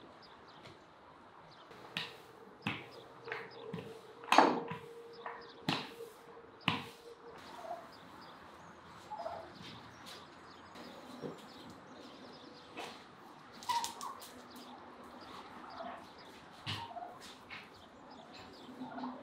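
Scattered sharp knocks and clicks, the loudest about four seconds in, over faint bird calls in the background.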